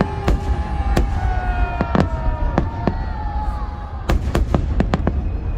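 Fireworks salute bursting overhead: a run of sharp bangs over a steady low rumble, thickening into a quick cluster of bangs about four seconds in. Thin high tones slide slowly down in pitch through the first few seconds.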